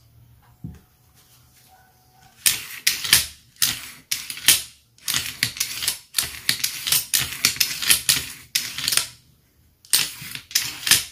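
Metal clicking and clacking of a Toros Copolla TR12 shotgun's bolt carrier worked rapidly back and forth in its upper receiver against the recoil spring, spreading fresh lubricant along the rails. A quick, uneven run of clacks starts about two seconds in and pauses briefly near the end.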